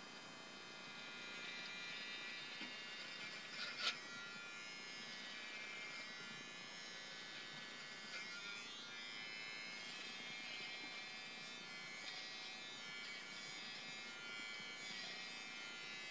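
BaByliss for Men i-stubble electric beard trimmer running steadily as it is drawn over neck and jaw stubble, with a brief click about four seconds in.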